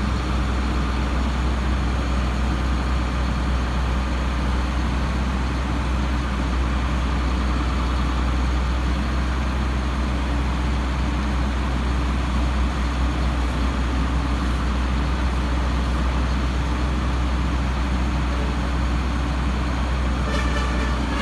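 Heavy diesel machinery engine running steadily at constant speed, with a strong low hum.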